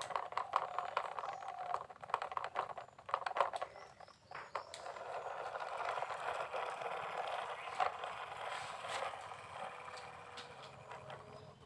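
Plastic toy vehicles being handled: a run of clicks and knocks, then a steady rasping noise from about halfway through that fades toward the end.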